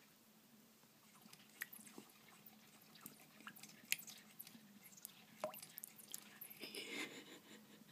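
Faint, irregular clicks and taps of a pet hedgehog's feet and claws on a sink's surface as she runs about, with a brief scratchy rustle about seven seconds in.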